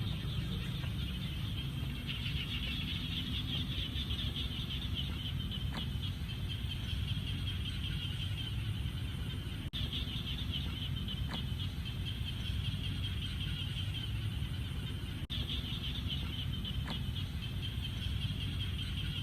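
A chorus of frogs calling continuously at a pond, a steady high-pitched pulsing chorus, over a low rumble.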